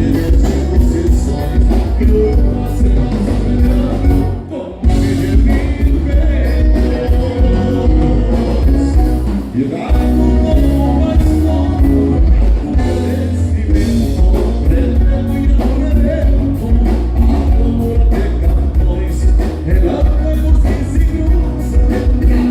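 Live band playing a gaúcho milonga, with a prominent electric bass line under a steady beat. The music drops back briefly twice, at about four and a half and nearly ten seconds in.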